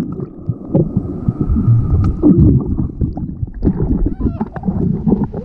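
Water churning and splashing around a GoPro at the waterline, a dull low rumble with irregular knocks while the camera is under the surface. The splashing continues as a swimmer moves through the water beside it.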